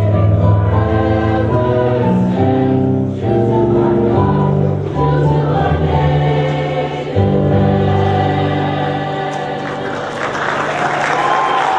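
High school choir singing the closing phrases of a song, ending on long held notes, then applause breaking out near the end.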